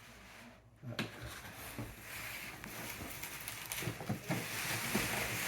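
Plastic packaging and bubble wrap rustling and crinkling as it is handled and pulled off a part, with many small crackles, starting about a second in and growing louder toward the end.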